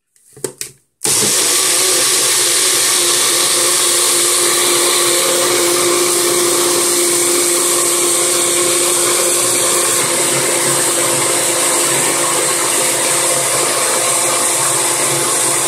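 Small bullet-style personal blender blending boiled sweet potato with milk. A few clicks come as the cup is pressed onto the base, then the motor starts about a second in and runs loud and steady at one pitch.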